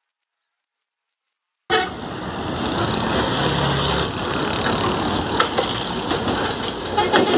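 Silent for the first second and a half or so, then outdoor street-side noise cuts in suddenly: road traffic and an approaching diesel train beside the road, with horn toots.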